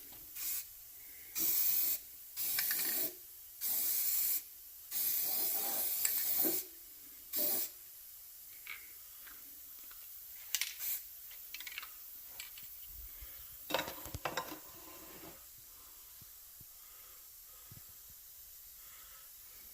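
Aerosol can of crack-detection developer sprayed into an engine cylinder bore in short hissing bursts, six in the first eight seconds, the last one brief. This is the developer coat of a dye-penetrant test, which draws out the dye to show cracks. Afterwards come a few light clicks and a short clatter about fourteen seconds in.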